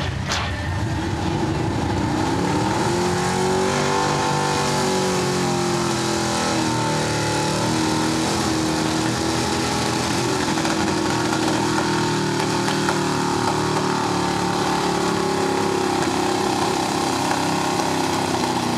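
Square-body Chevrolet pickup's small-block V8 running at high revs under full load while pulling a weight-transfer sled. The revs climb over the first few seconds, waver briefly, hold high, and fall off right at the end as the pull finishes.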